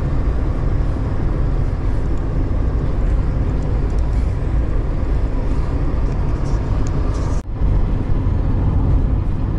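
Steady road and engine noise heard inside the cabin of a moving car, mostly a low rumble. It drops out for a split second about seven seconds in, then carries on.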